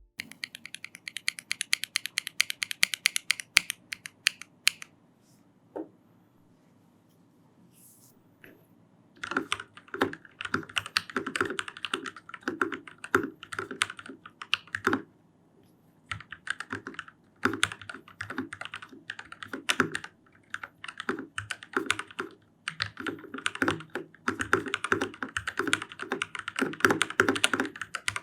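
Typing sound test on a custom 87-key hot-swap TKL mechanical keyboard with lubed and filmed Gateron Milky Yellow linear switches, foam-modded to damp its hollow ping. A quick run of key presses for about five seconds, a pause of a few seconds, then steady continuous typing with short breaks.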